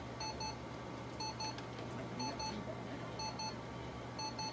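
Electronic alarm beeping in double beeps, two short high beeps about once a second, five pairs in all, over a low steady hum.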